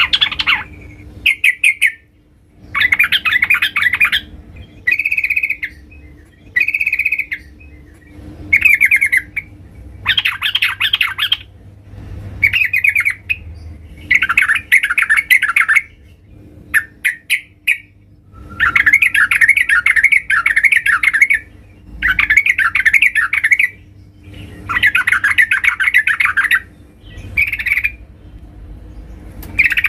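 A female yellow-vented bulbul (trucukan) calls in repeated rapid chattering phrases of one to three seconds each, with short pauses between them. This is the female's call to males, used as a lure for trucukan birds.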